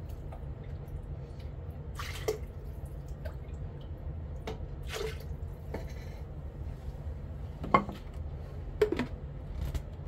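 Liquid dripping and splashing as a blender jar is rinsed out with chicken broth into a pot of mole, with a few short clinks of the jar and utensils. The two sharpest clinks fall about three-quarters of the way in, a second apart, over a steady low hum.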